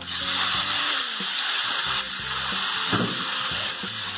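Thin strips of beef dropped into hot oil in a frying pan, sizzling at once and steadily as they start to fry; a silicone spatula stirs them near the end.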